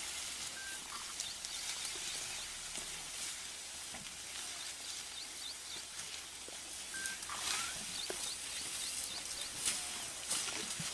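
Quiet forest ambience: a steady hiss with faint, repeated bird chirps in short runs, and a few light rustles and clicks near the end.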